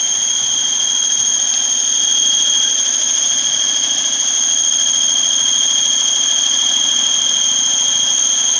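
Steady high-pitched whistle from a Citroen C2's 1.6 engine, held at one pitch over the engine running. The whistle stays on a cold engine and WD-40 has not cured it.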